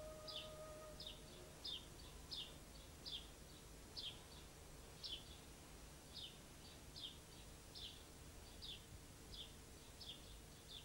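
A small songbird chirping over and over, faint short high chirps about one a second. The last of a held musical note fades out near the start.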